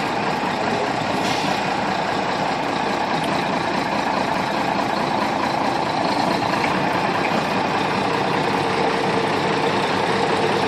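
Heavy truck's diesel engine running steadily at low revs.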